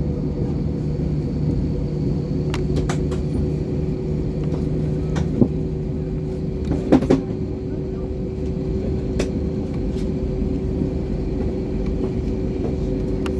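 Airbus A320 cabin noise: a steady engine and air-system rumble with steady hums, a low one fading out about halfway, and a few short knocks and rattles, the loudest about seven seconds in.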